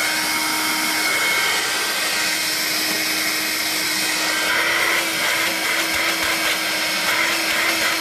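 Vax Air Cordless Lift battery-powered upright vacuum cleaner running steadily on its normal power setting: a constant motor whine over a lower hum and the rush of airflow.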